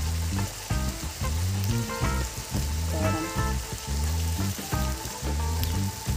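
Background music with a steady beat, a heavy bass line and a melody.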